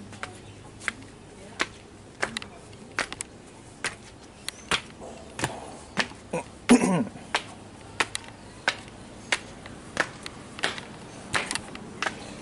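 Footsteps climbing concrete and tiled stairs, one sharp step about every two-thirds of a second. There is one louder, lower sound about seven seconds in.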